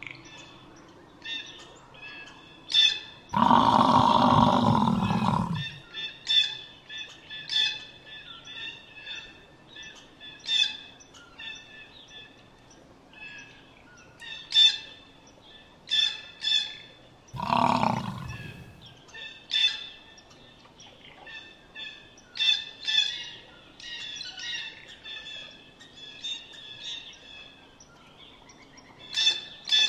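Many birds chirping in short, high calls throughout, with two long, loud, low calls from a water buffalo lowing, one about three seconds in and a shorter one about halfway through.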